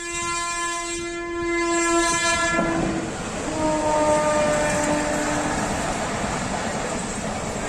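A loud horn sounds one long blast of about two and a half seconds, then a second, lower blast about a second later, over the steady rumbling noise of a moving vehicle or train.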